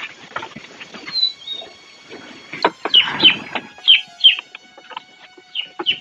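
Short, falling chirps of birds, loudest in the middle, over scattered clicks and knocks around a rural cowshed; steady music notes come in during the second half.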